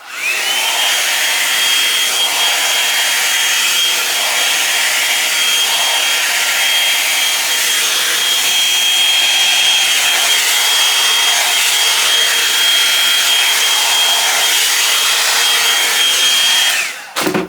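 Drybar Double Shot blow-dryer brush running while it rough-dries hair: a steady rush of air with a high motor whine. The whine rises as the brush switches on and falls away as it switches off near the end.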